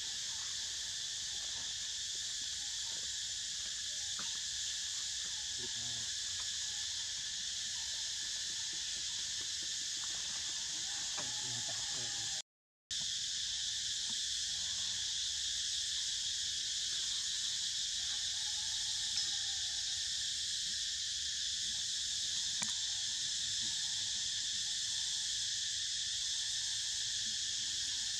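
Steady high-pitched chorus of insects buzzing in the forest, cut by a brief silent gap near the middle.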